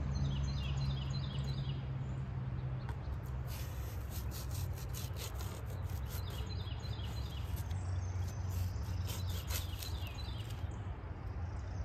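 Serrated bread knife sawing through hardened expanding foam on a 3D foam deer target: a quick run of back-and-forth strokes from about three seconds in to near the end. Birds chirp and a steady low rumble sits underneath.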